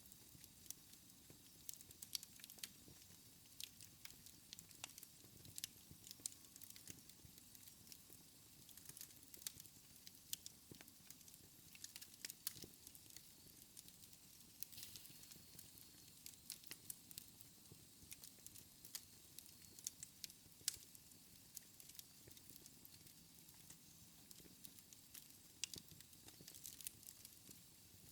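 Wood fire in a fireplace crackling quietly, with many small sharp pops at irregular intervals over a faint low hiss.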